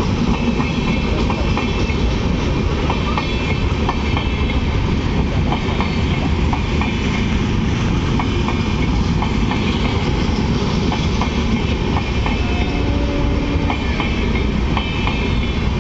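Indian Railways passenger coaches rolling past: a steady rumble with repeated clicks as the wheels cross rail joints.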